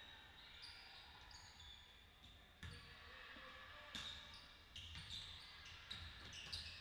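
Faint basketball game sound: a ball bouncing on the court floor several times at an uneven pace, with short high squeaks of shoes on the court.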